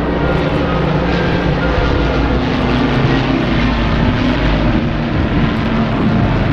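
Several Rolls-Royce Merlin piston engines droning together as a formation of World War II aircraft flies past. It is a steady, loud drone, with several low engine notes beating against one another and slowly drifting in pitch.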